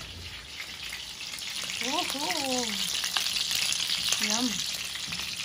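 Smoked boneless milkfish (bangus) frying in oil in a skillet: a steady sizzling hiss that grows louder about a second in.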